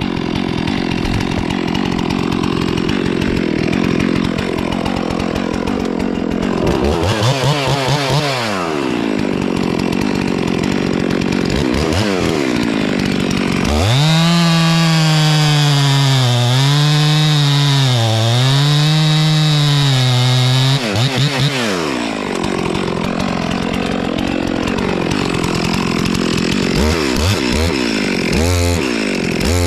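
Chainsaw running at high revs as it cuts into a tree trunk. Midway it bogs in the cut for about seven seconds, its pitch sagging and recovering under load, and near the end there are a few short throttle blips.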